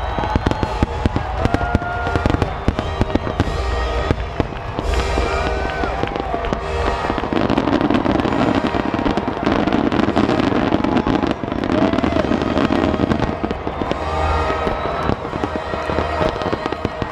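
Aerial fireworks display: shells bursting in quick succession with dense crackling, the bangs coming almost continuously.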